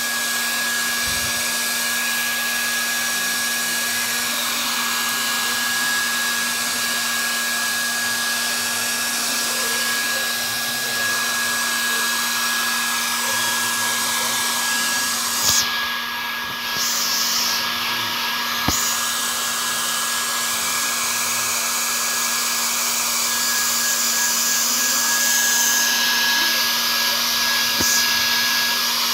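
Hair dryer running steadily, with a constant whine, blowing on a Persian cat's fur after its bath. The high hiss of the airflow drops away briefly twice a little past the middle.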